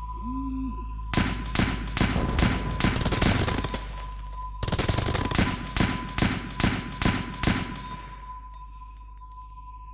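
Automatic gunfire in two long bursts: a dense run of shots starting about a second in, then a second run of more spaced shots from about halfway that dies away near the end.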